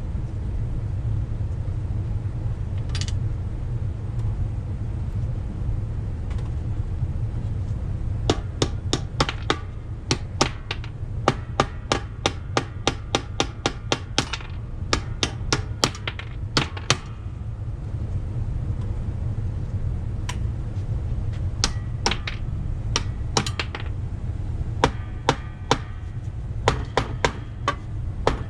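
Hammer tapping on metal: runs of sharp metallic strikes, each with a short ring, about three or four a second, starting about eight seconds in, over a steady low hum.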